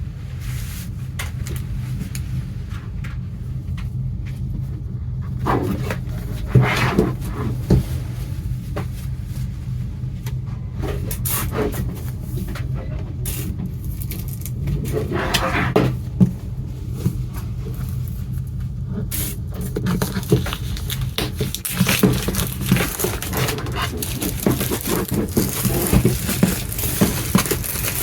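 Hands handling the packaging of a boxed CD set: scraping and rustling of box and wrapping now and then, becoming a denser crinkling about two-thirds of the way in, over a steady low hum.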